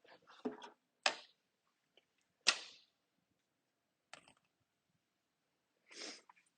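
Four brief, faint rustles and taps spaced a second or more apart, the third the sharpest: handling noise from someone moving about and touching things.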